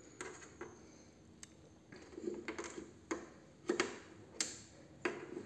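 Scattered light clicks and knocks, about seven irregularly spaced, from hands handling a Yamaha MG16XU mixing console and its connectors while cables are being plugged in.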